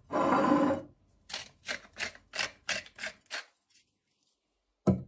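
Hand-twisted pepper mill grinding pepper: one longer grind of just under a second, then about eight short grinding twists, roughly three a second. A sharp click near the end.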